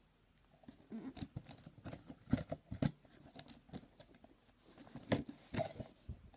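A knife cutting open a shipping package, with irregular scraping and clicking cuts and some rustling of the packaging.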